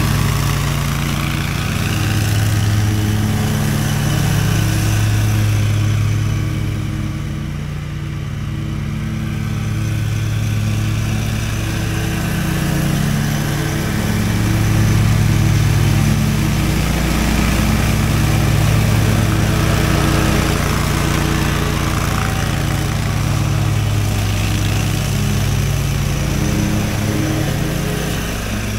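Stand-on mower engine running steadily, its level dipping and swelling as the machine works through the leaves.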